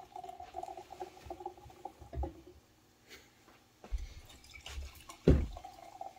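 Cider poured from a swing-top bottle into a stemmed glass, the filling glass giving a steady gurgling tone that breaks off about two and a half seconds in. A few dull knocks follow, a sharp one about five seconds in, and the pour starts again near the end.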